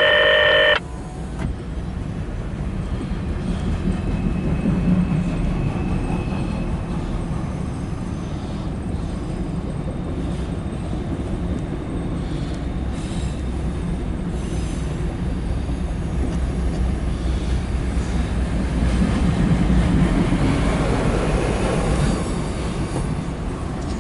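Loaded autorack freight cars rolling past: a steady rumble and rattle of wheels on rail. A loud, flat electronic-sounding tone cuts off under a second in.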